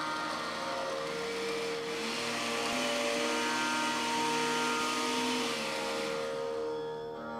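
Electric mixer grinder running at speed, wet-grinding onion, green peas, yogurt, spices and water into a smooth paste. The motor noise dies away about six seconds in.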